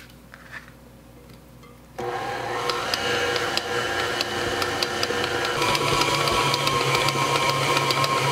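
Electric stand mixer with a dough hook kneading heavy bread dough as walnuts and figs are worked in. The motor starts about two seconds in and runs steadily with light repeated ticking. Its tone changes a little past halfway through.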